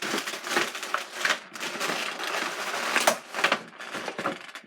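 Stiff plastic packaging crinkling and clicking as it is handled and pressed into a toy box, with a string of small sharp ticks.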